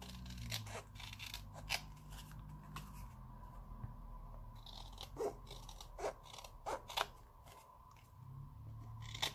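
Scissors snipping through stiff card, trimming around the edge of a paper disc: a series of short, crisp snips at uneven intervals, with a lull of about two seconds near the middle.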